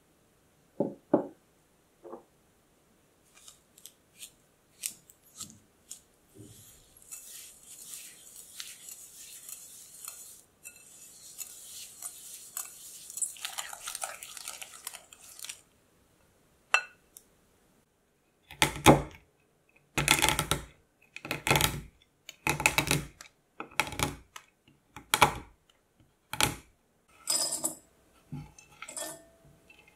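A wire whisk creaming butter and sugar in a glass bowl: a steady scratchy rustle with small ticks against the glass. Past the middle come loud, regular knife chops, about one a second, cutting chocolate on a wooden board.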